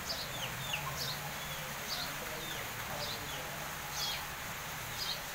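Small birds chirping, short falling chirps repeating about once every half second to a second, over a low steady hum.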